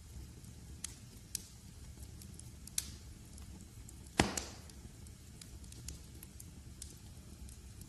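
Log fire crackling in a fireplace: a steady low rumble with scattered sharp crackles, and one loud pop about four seconds in.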